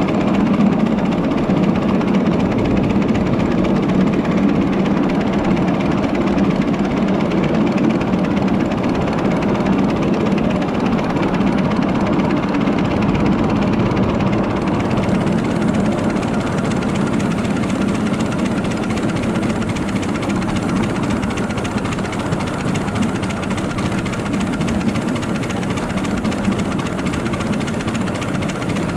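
7.5-inch gauge ride-on miniature train running along the track: a steady rumble of the wheels on the rails and the locomotive working.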